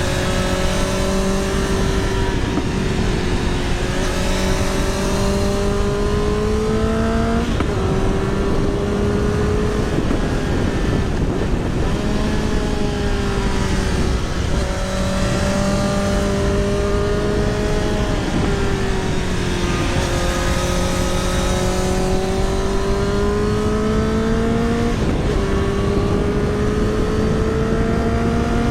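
Motorcycle engine heard through a helmet-mounted microphone, its note climbing slowly and dropping back sharply several times, under heavy wind rumble on the microphone.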